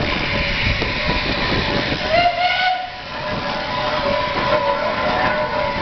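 Steam traction engine running as it passes close by, with short knocks through its running. A steam whistle blows briefly about two seconds in, and a steady whistle tone holds through the second half.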